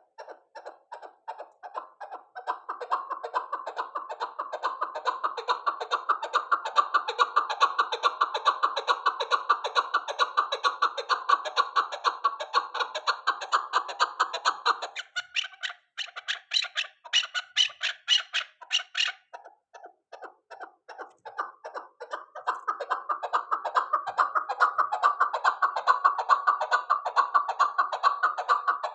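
Male chukar partridge (chakor) calling: long runs of rapid clucking notes, several a second. The notes grow louder about two seconds in, turn briefly higher and sharper about halfway, then the dense clucking resumes.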